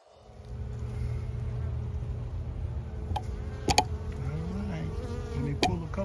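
Honey bees buzzing close over the open hive's frames, with single bees rising and falling in pitch as they fly past the microphone. A few sharp clicks come in the second half.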